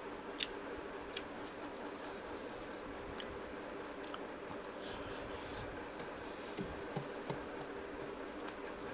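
Eating rice and curry by hand from a steel plate: fingers scrape and gather rice on the metal, with chewing and a few scattered sharp clicks over a steady low hum.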